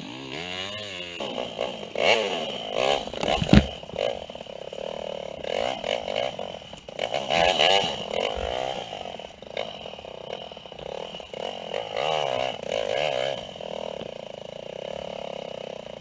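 Honda XR250R enduro bike's single-cylinder four-stroke engine, revving up and down again and again as it is ridden through soft, muddy ground. A loud knock comes about three and a half seconds in.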